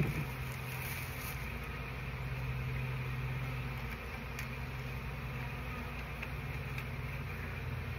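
Honey bee colony buzzing as a steady drone, many bees in the air around their disturbed nest in an open trash can. A brief knock right at the start.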